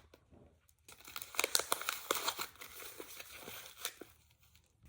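Paper crinkling and rustling in hands as a homemade paper squishy is handled, a dense run of irregular crackles lasting about three seconds.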